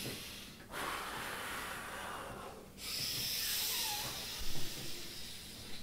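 A person breathing in and out as forcefully as he can, in a deliberate breathing exercise. There are three long, loud hissing breaths with brief pauses between them, and a short louder catch in the breath about three-quarters of the way through.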